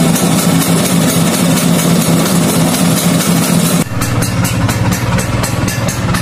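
Classic Vespa scooter's two-stroke single-cylinder engine idling with a steady, even beat. About four seconds in it cuts abruptly to another idling engine with a slightly different tone.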